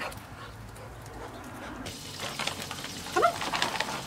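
A plastic pouch crinkling as it is handled, starting about two seconds in. Short high bending calls, like a whine, come about three seconds in.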